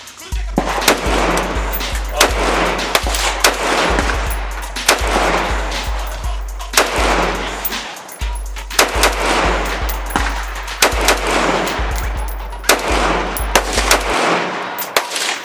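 SIG 556 rifle firing 5.56/.223 rounds: a long string of loud single shots at uneven spacing, some in quick bunches, each with a short echo off the range.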